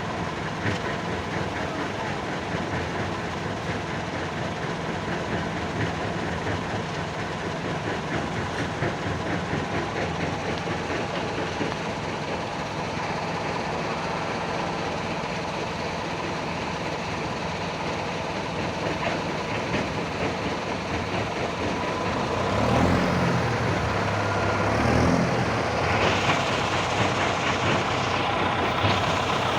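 Heavy diesel construction machinery running steadily. About two-thirds of the way through the engine gets louder and its pitch rises and falls, as it revs under load.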